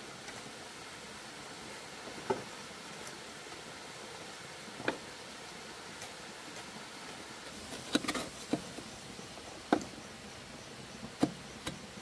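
Irregular sharp knocks, about six, spaced a second or more apart, with a cluster near two-thirds of the way through, over a steady rushing hiss.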